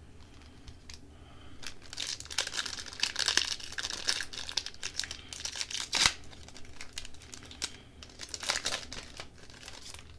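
Hockey card pack wrapper being torn open and crinkled by hand, in crackling bursts, with a sharp snap about six seconds in.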